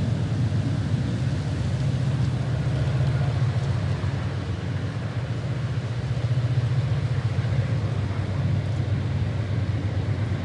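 Wind and rustling leaves over a steady low rumble that does not change.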